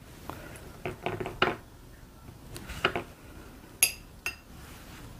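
Metal spoon clinking and scraping against a small ceramic bowl while scooping sliced pickles: a handful of scattered clinks, a small cluster in the first couple of seconds and the sharpest one near four seconds in, ringing briefly.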